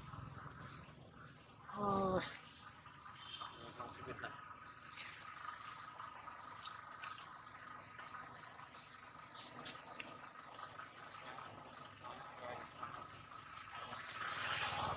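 Insects buzzing in a steady high-pitched drone that fades near the end, with a brief call about two seconds in.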